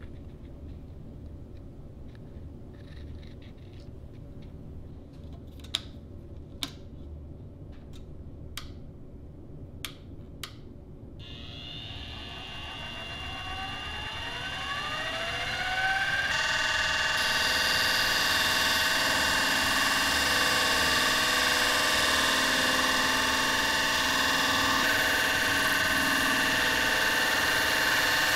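A few sharp clicks, then a Central Machinery benchtop drill press motor starts about eleven seconds in. Its whine rises in pitch as the speed knob is turned up, then it runs steadily at speed, spinning a sanding drum.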